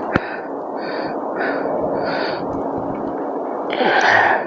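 A man breathing hard in short, quick breaths, with a sharp click about a quarter second in and a louder breath near the end.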